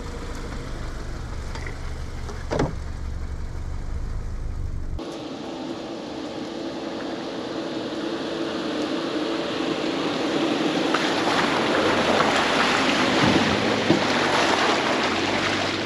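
Subaru Forester driving on a dirt trail. At first it is a low steady rumble with a single knock about two and a half seconds in; then, after a sudden change about five seconds in, it becomes a rushing noise that grows steadily louder.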